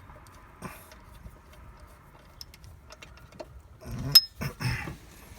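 Light metallic clicks and ticks of hand tools and bolts as water pump bolts are threaded in by hand, with one sharp ringing metal clink about four seconds in.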